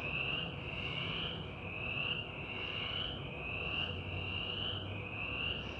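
An animal's high chirping call repeating at an even pace, each chirp a short rising slide, about one every three-quarters of a second.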